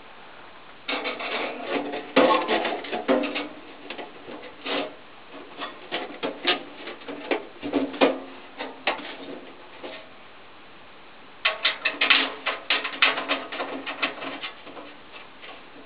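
Sheet-metal combustion chamber casing of an old e.l.m. Leblanc wall-hung gas boiler being worked against the boiler frame, scraping and rattling metal on metal. It comes in two busy bouts, one starting about a second in and one near the end, with scattered knocks between.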